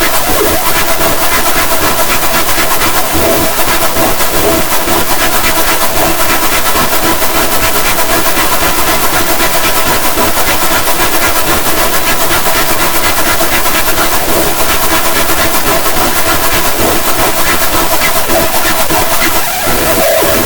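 Digitally layered and distorted sound-effect edit: a loud, harsh, dense noise with a few steady tones running through it, unbroken throughout.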